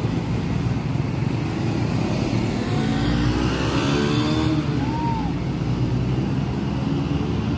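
Motor vehicle engine running over a steady low rumble, its pitch sliding down between about three and four and a half seconds in. A brief high chirp sounds near five seconds.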